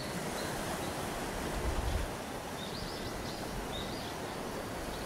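Steady wash of sea surf, with a few faint high chirps over it.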